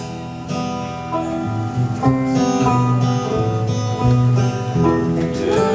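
Acoustic guitar strumming and banjo picking together, an instrumental passage of a country-rock song with notes changing about every half second.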